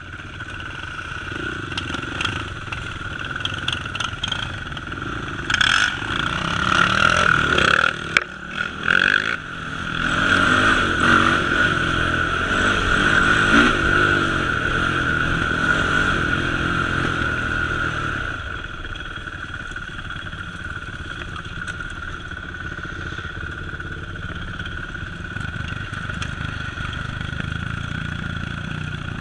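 Sport ATV engine running, revving up and down through the first half, then running more steadily near the end.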